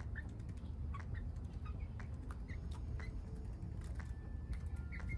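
Backyard hens pecking at scattered seed treats on dirt: many light taps, with short high chirps and peeps among them over a low steady rumble.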